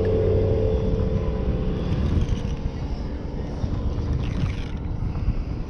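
Motorboat engine running at speed, a steady drone that fades away over the first few seconds: a boat going fast through a no wake zone. A rough rushing noise, likely wind on the microphone, sits under it.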